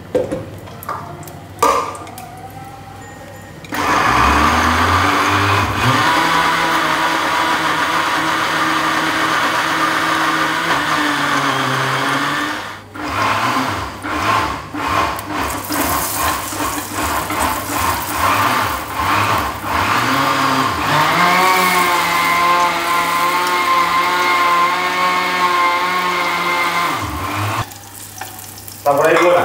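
Electric blender grinding shrimp with water. The motor starts about four seconds in, pulses on and off for a stretch in the middle, runs steady again with its pitch rising, and stops near the end.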